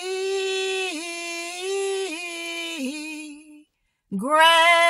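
A woman singing, holding one long note with small dips in pitch, breaking off about three and a half seconds in; a second held note begins just after four seconds.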